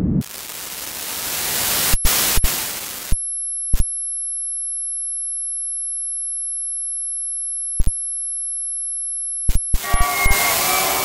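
Electronic sound design of a kinetic light-and-sound installation. A swelling hiss is broken by sharp digital clicks, then gives way to a few steady high pure tones held for about six seconds. Near the end the hiss returns with pitched electronic tones.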